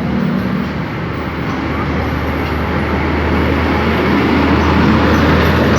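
Road traffic noise: a large vehicle's steady low engine hum under tyre and road noise, growing a little louder toward the end. No telolet horn sounds.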